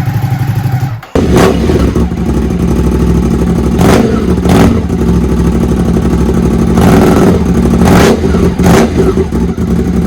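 Ducati SuperSport's L-twin engine with a Competition Werkes aftermarket exhaust, idling and then, after a brief break about a second in, revved in about six quick throttle blips.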